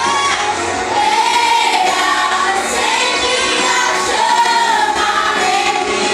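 A group of voices singing a worship song together over music, with held, gliding sung lines.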